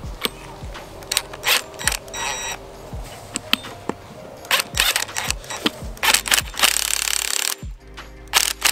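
Background music with a steady beat. About a second before the end there is a short, dense burst of rattling noise that stops suddenly: a cordless impact wrench with a 17 mm socket running down the new top nut on a coilover's strut mount.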